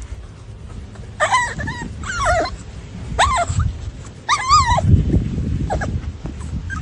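Puppy whimpering in high, wavering squeaky cries, four loud ones in quick succession and a couple of fainter ones near the end, with a muffled rustling of handling partway through.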